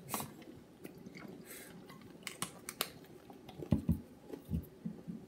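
A child chewing a big mouthful of mint chocolate chip Oreo cookie, with scattered soft crunches and mouth clicks.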